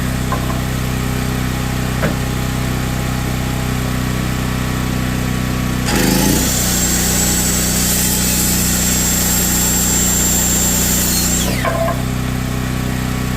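Hercules 7-1/4-inch corded circular saw starting about halfway through, running with a high whine through a cut in a board for about five seconds, then spinning down quickly under its electric brake. A steady low engine hum sits underneath.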